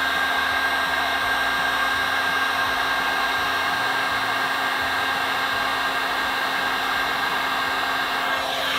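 Handheld electric heat gun running, its fan blowing hot air onto a hard-plastic drone part to soften it for bending. A steady rushing hiss with a thin high whine and a low hum.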